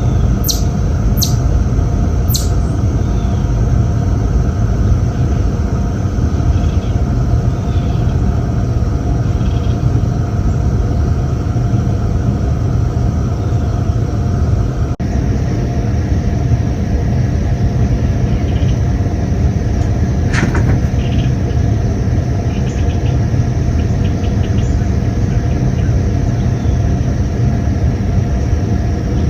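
A chipmunk chirping: three sharp, high, falling chirps in the first two and a half seconds and one more about twenty seconds in. Under them runs a loud, steady low rumble.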